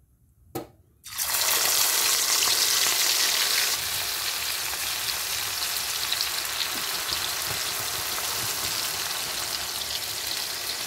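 Marinated baby prawns going into hot mustard oil in a kadhai: after a short knock, loud sizzling breaks out suddenly about a second in, eases slightly a few seconds later, and runs on steadily as the prawns deep-fry.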